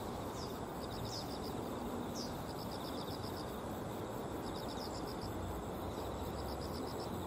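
Riverbank ambience: a steady low background rush with insects chirping from the grass in fast, evenly repeated high pulse trains. A few short, high downward chirps come in the first couple of seconds.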